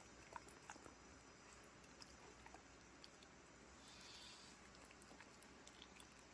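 A dog faintly chewing and nibbling a tough piece of whelk meat held in fingers: scattered small clicks.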